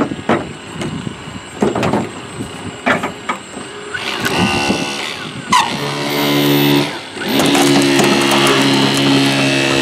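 Hydraulic rescue spreaders at work on a car's hood hinge: knocks and clatter as the tips are set against the metal, then from about four seconds in a steady motor hum as the tool runs, stopping briefly near seven seconds and starting again.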